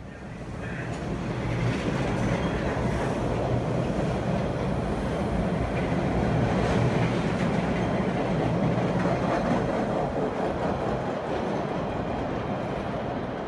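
MBTA Orange Line subway train running past along the station platform and pulling away. The noise builds over the first two seconds, stays loud, and eases slightly near the end.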